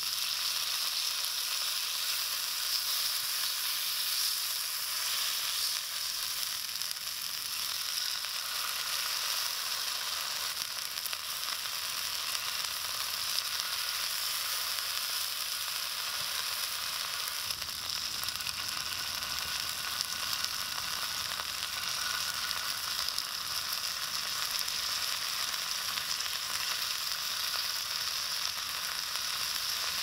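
Pork pieces sizzling in hot oil in a small cast-iron skillet, a steady frying hiss.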